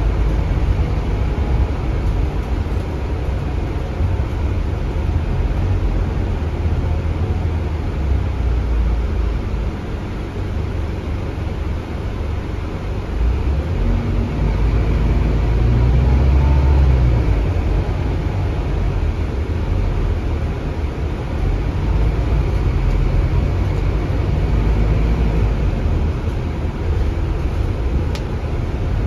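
Interior ride noise of a Scania K320UB city bus: the rear-mounted Scania DC9 diesel engine and ZF automatic driveline running under way with road noise, mostly a low rumble. The rumble grows louder for a few seconds about halfway through, then settles.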